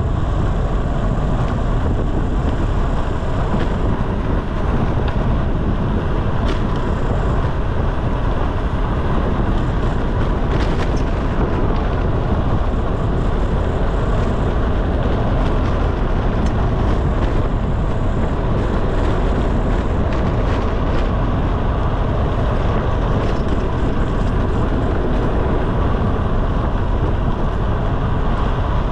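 Steady rush of wind buffeting the microphone on a fast road-bike descent, mixed with tyre noise on the road.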